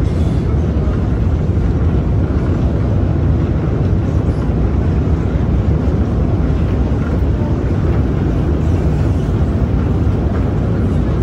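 Long metro escalator running, heard while riding it: a steady low rumble of the moving steps and machinery in the escalator tunnel.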